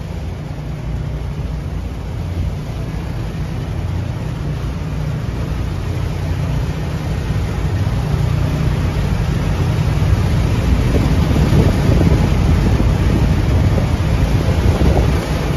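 Wind buffeting the microphone over the steady rumble of a small boat running across choppy water. It grows gradually louder toward the end.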